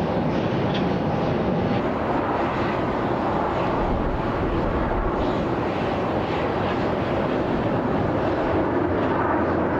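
Jet engines of a Boeing 757-232 airliner on approach to land, a steady rushing noise that holds an even level.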